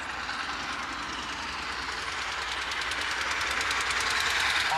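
LNER A4 streamlined steam locomotive approaching at speed, its rapid exhaust beats growing steadily louder as it nears.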